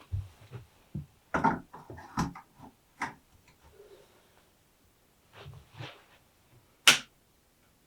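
Handling noises from swapping a light bulb in its fitting: scattered knocks and rustles, with a sharp click near the end.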